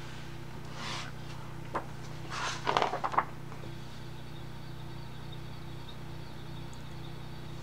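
A stiff picture-book page being turned by hand: paper rustling with a few light taps and flaps between about one and three seconds in, then only a steady low hum.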